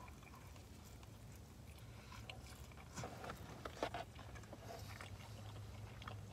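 A person chewing a mouthful of taco: faint wet mouth sounds and a few soft clicks, the clearest about three to four seconds in, over a low steady hum.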